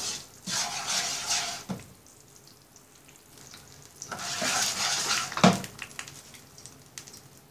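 Wooden spatula stirring jaggery as it melts in ghee in a non-stick pan, the bubbling syrup sizzling in two stretches with a faint bubbling between them. The spatula knocks sharply against the pan once, about five and a half seconds in.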